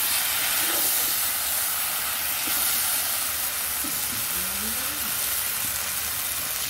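Desi magur catfish frying in spice paste in a kadai: a steady sizzle as the masala is sautéed with the fish until done, just before water goes in. A spatula stirs the pan near the start.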